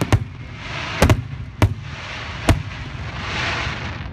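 Large aerial display fireworks bursting: a string of sharp bangs, several in the first two and a half seconds, then a swelling hiss around three seconds in.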